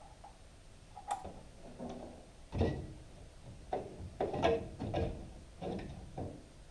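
A plastic AV wall plate with its Category 6 cables being handled and pressed into its opening in the wall: a series of small, irregular plastic clicks and knocks.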